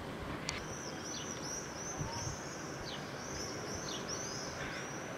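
Birds chirping: a quick run of short, high chirps, two or three a second, over a faint, steady background hum.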